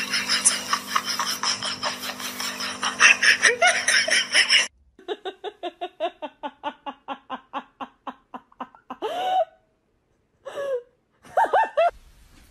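Air let out through a balloon's pinched neck in a long buzzing squeal that cuts off sharply; then a small child laughing in quick rhythmic bursts, ending in a few short squeals.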